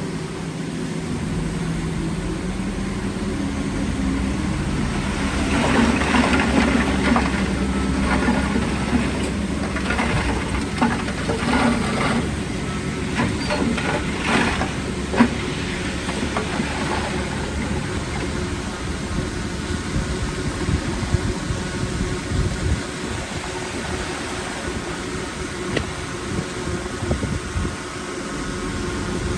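Heavy diesel earthmoving machinery running steadily, with a stretch of rattling and clanking from about five to sixteen seconds in.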